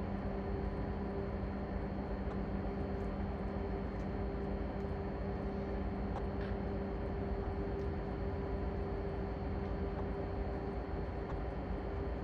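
Steady drone of engine-room machinery with a constant low hum.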